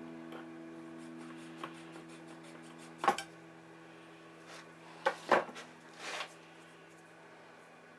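A few sharp clicks and knocks of a small wooden workpiece and tools being handled on a workbench: one about three seconds in, two close together around five seconds, and a short rustle just after, over a faint steady hum.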